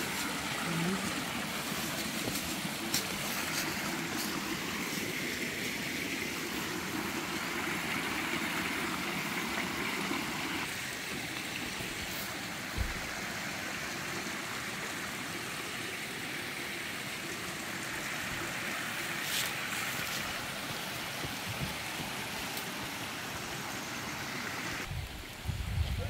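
Small mountain stream running steadily, water trickling and splashing between rocks in little cascades. A few knocks near the end.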